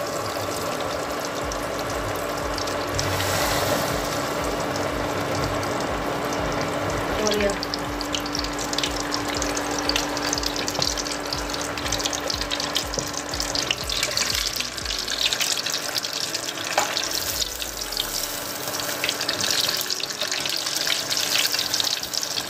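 Flour-coated chicken pieces deep-frying in hot oil in a pan, a steady sizzle full of fine crackles as the freshly added batter bubbles hard.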